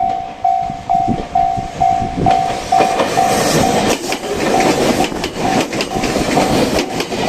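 Japanese level-crossing warning bell ringing in an even, repeating ding a little over two strokes a second, while a train rolls through the crossing, its wheels clacking over the rail joints from about two seconds in.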